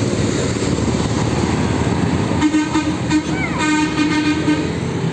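A bus's Basuri telolet horn, a musical multi-tone air horn, sounds from about halfway: a few short pulses, then a held note of about a second. Steady heavy-vehicle engine noise runs underneath.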